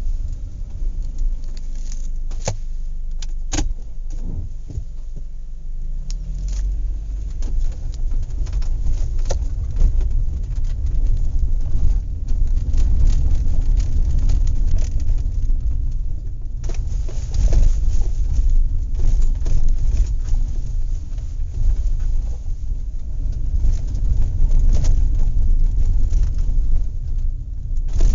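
Horse farm activity: a steady low rumble, louder from about six seconds in, with scattered clinks and metallic jingles.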